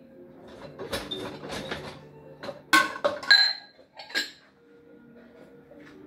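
Dishes clattering as they are unloaded from a dishwasher and stacked, followed by a few sharp, ringing clinks of dishes knocking together about three seconds in, the loudest of them a little after. Soft background music runs underneath.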